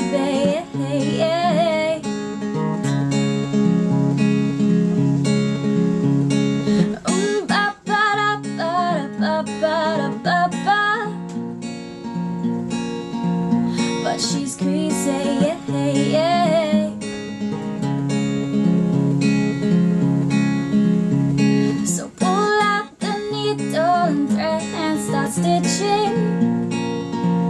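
Background music led by strummed acoustic guitar, with a wavering melody line above the chords.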